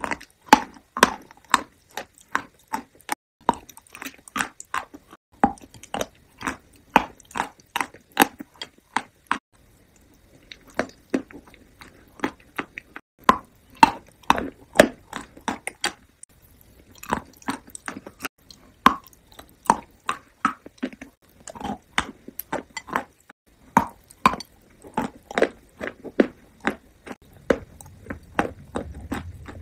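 Close-miked ASMR chewing of a sweet treat: wet mouth clicks and smacks, irregular, a few per second, with a couple of short pauses.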